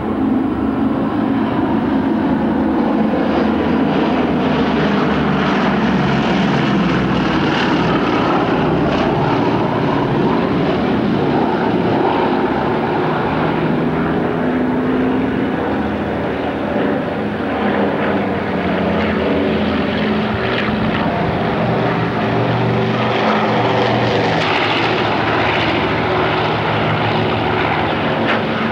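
Radial piston engines of a low-flying B-17 Flying Fortress and other WWII bombers, a loud, steady propeller drone. The pitch falls over the first few seconds as the bomber passes.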